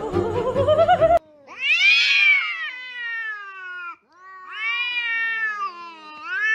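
A domestic cat yowling at another cat in a face-off: two long, drawn-out aggressive yowls, each rising and then falling in pitch. Opens with about a second of music.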